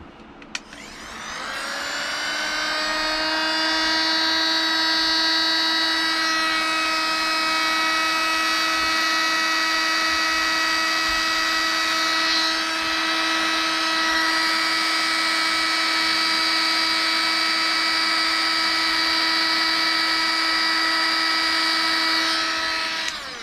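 Heat gun's fan motor spinning up about a second in and then running with a steady whine and a rush of hot air, winding down near the end. It is heating the screen to soften the digitizer's adhesive.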